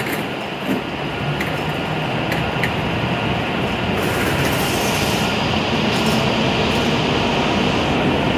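E7 series Shinkansen train pulling out of the platform, its wheel and motor running noise growing slowly louder as it gathers speed, with a few sharp clicks in the first seconds.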